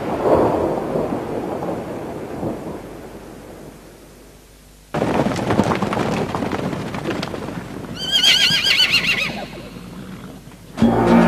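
A horse neighing, one long wavering whinny about eight seconds in. Before it comes a rush of wind-like noise that fades away, then a sudden loud patch of rumbling noise with clatter from about five seconds in. Music begins just before the end.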